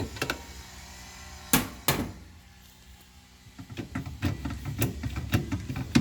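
Hard knocks and clatter from handling a top-load washing machine's agitator and its fittings: two sharp clicks about a second and a half in, then a run of irregular knocks and rattles in the second half.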